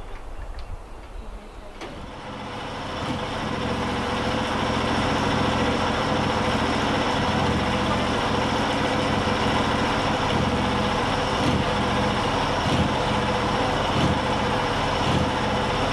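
Small gasoline engine of a LumberMate portable band sawmill running steadily, without cutting. It comes up about two seconds in and holds an even pitch and level after that.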